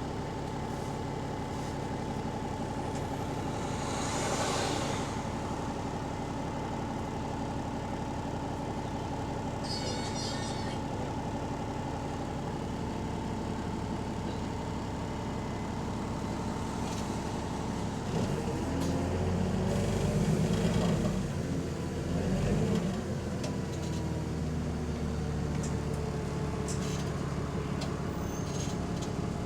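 London bus diesel engine heard from inside the bus, running steadily with a constant whine, on a bus whose turbo the title calls bad and which it says is in limp mode. A short hiss of air comes about 4 s in, and the engine gets louder and its note shifts from about 18 s to 23 s, then settles.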